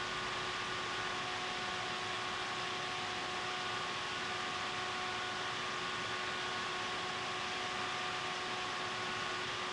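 Room tone: a steady, even hiss with a few faint steady hum tones under it and no distinct events.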